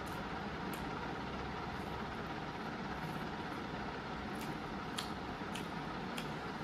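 Faint eating sounds, a handful of soft short clicks as rice is mixed by hand on a banana leaf and eaten, over a steady background hiss.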